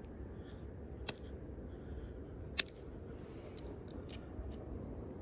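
Hornstone being knapped with a bopper: sharp clicking strikes of the percussor on the stone, two loud ones about a second and a half apart, then a few lighter ticks, as flakes are taken off to shape a blade.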